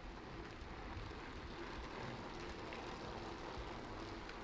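Faint steady road ambience: a low rumble under an even hiss.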